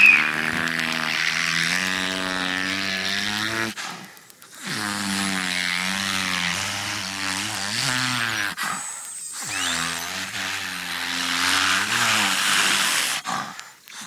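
Beluga whale calls: long, low calls with a gently wavering pitch, in three stretches broken by short pauses about four and nine seconds in. A brief rising whistle comes near the end of the second stretch.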